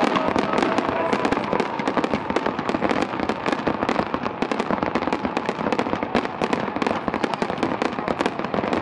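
Fireworks display going off continuously: a dense, fast run of sharp crackling pops, many each second.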